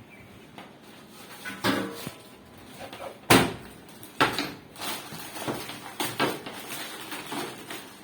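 A series of sharp knocks and bangs with lighter clatter between them. The loudest comes about three seconds in, followed by another strong one about a second later.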